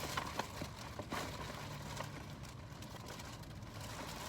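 Faint scattered clicks and rustles as a takeout food container is handled and opened, over a low steady hum.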